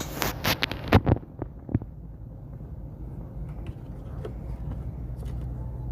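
Handling noise from reassembling a home theatre amplifier: a quick run of clicks and knocks in the first second or two, then a few light ticks over a steady low hum.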